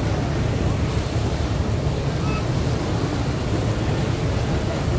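Wake water rushing and churning along the hull of a lake passenger boat under way, with wind on the microphone and a steady low rumble underneath.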